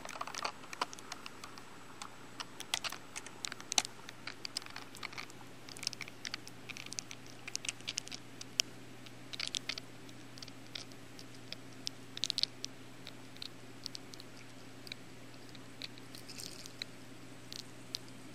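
Underwater in a fish pond: irregular clicking and crackling, several ticks a second, loudest in clusters, over a steady low hum.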